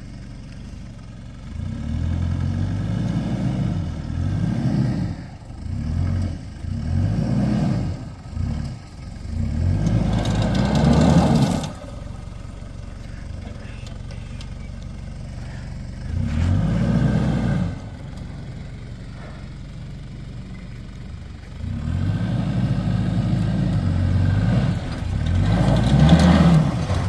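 Mitsubishi Triton ute's engine revving in repeated surges as it climbs over sand mounds, the loudest about eleven seconds in. Between the surges it drops back to a low steady run.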